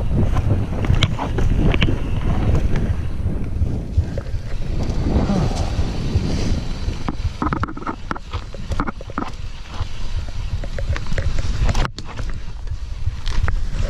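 Mountain bike descending rocky singletrack: a steady low rumble of wind buffeting the GoPro microphone and tyres rolling over rock and dirt, with many scattered clicks and knocks from the bike rattling over bumps, thickest in the second half.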